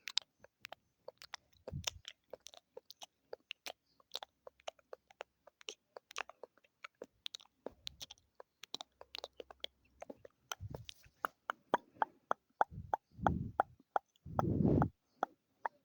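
ASMR mouth sounds close to the microphone: a string of wet clicks and smacks. They grow faster and louder in the last few seconds, mixed with a few fuller, lower smacks.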